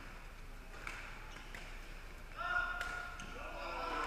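Badminton rally: rackets striking the shuttlecock in sharp, echoing cracks, the loudest about two and a half seconds in. Then long, high-pitched squeaks of court shoes on the sports-hall floor as players lunge and slide.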